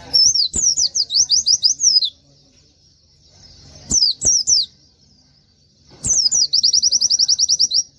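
White-eye (pleci) singing in three bursts of high, rapid-fire chirping. The last burst runs into a fast, even trill.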